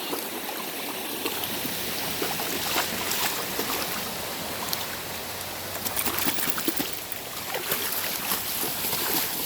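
Steady rush of water from a small waterfall and stream, with a few short clicks scattered through it.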